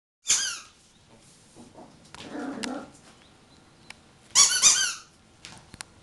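Rubber squeaky bone toy squeezed under a foot: one loud, high squeak falling in pitch near the start, then two quick squeaks about four and a half seconds in. A softer, lower sound comes in between, about two seconds in.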